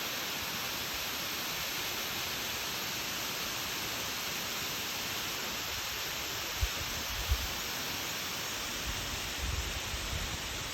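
Waterfall, water falling with a steady, even rush. A few short low thumps come about two-thirds of the way in and again near the end.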